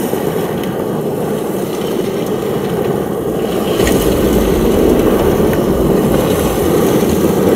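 Tyres of an electric Mercedes G580 scrabbling and spinning on loose gravel as it pivots on the spot in a G-turn, a steady rough crunching rush of gravel, with a heavier low rumble joining about halfway through.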